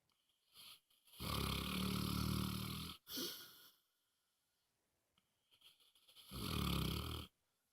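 Sleeping dog snoring loudly: a long snore about a second in, a short breath right after it, then a second snore near the end.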